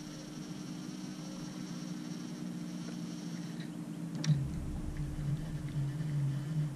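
A steady low mechanical hum, with a single sharp knock about four seconds in, after which a louder, wavering low drone runs until near the end.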